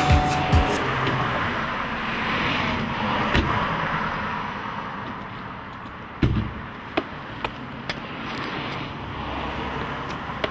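A car pulling up and stopping at the curb, its engine and tyre noise swelling over the first few seconds and then fading. About six seconds in comes a heavy thump, then a few footsteps about half a second apart.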